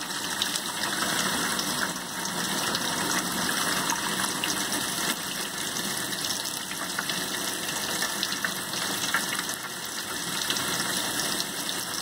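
Tap water running steadily through and over a dishwasher spray arm held under the faucet, splashing into a stainless steel sink: the arm is being flushed to check its jets for blockages.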